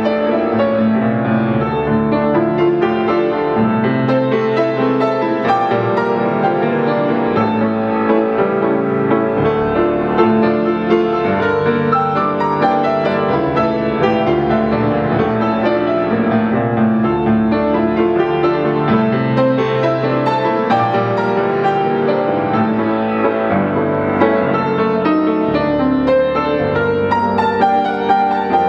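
Solo acoustic piano playing a classical piece, continuous and even in loudness.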